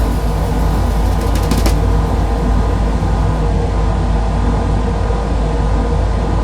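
Old ceiling fan running, a loud steady low hum and rumble, with a quick cluster of clicks about one and a half seconds in.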